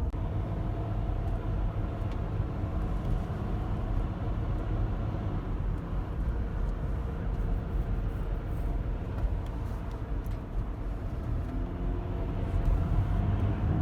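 A car driving at a steady speed: constant low road and engine rumble.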